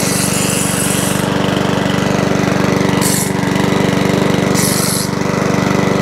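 Mountfield 414 rotary lawnmower's petrol engine running steadily. It is being given a run to clear the water residue thought to remain in the cylinder head after water got into the fuel tank. Three short bursts of high hiss come and go over the engine sound.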